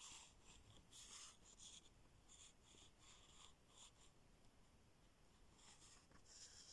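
Faint scratching on paper, like pen strokes, in short irregular scrapes of a fraction of a second each, about a dozen in all.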